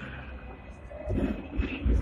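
Seventh-generation Hong Kong tram running along the street, heard from inside at the driver's end: a low rumble of wheels and motor that swells with uneven low thumps from about a second in.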